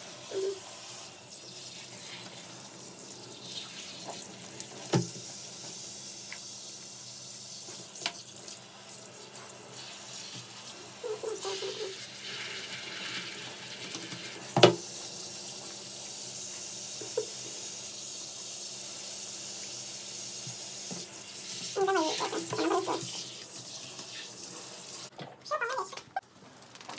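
Handheld shower head spraying water over a wet West Highland White Terrier in a shower tray, a steady hiss, with a few sharp knocks, the loudest about halfway through. The water shuts off about two seconds before the end.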